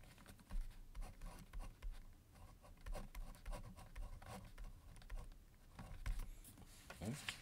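Pilot B2P gel pen writing a word on paper: faint, quick scratchy strokes of the tip across the sheet.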